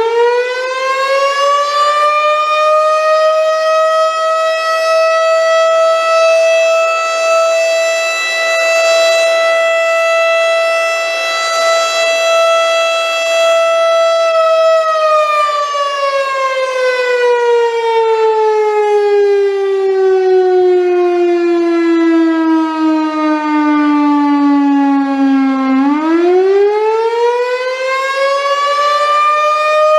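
Federal Signal STH-10 outdoor warning siren sounding one tone during a test. Its pitch is still climbing at first and reaches full pitch a few seconds in. It holds steady for about ten seconds, winds down slowly for about eleven seconds, then spins back up to nearly full pitch near the end.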